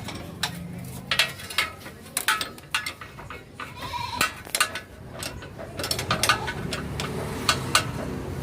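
Spanner working the rear axle bolt of a Hero Splendor motorcycle to loosen it, giving a run of sharp, irregular metal clicks and knocks.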